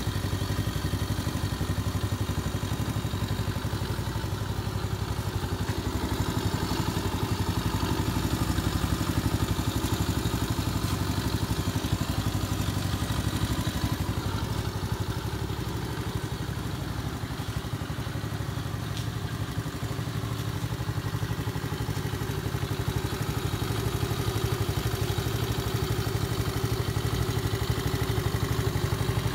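Venom Grizzly 125cc ATV's single-cylinder four-stroke engine idling steadily.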